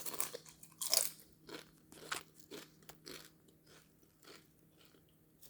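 Someone biting and chewing crunchy tortilla chips: a run of crisp crunches, loudest at the start and about a second in, then fainter ones every half second or so.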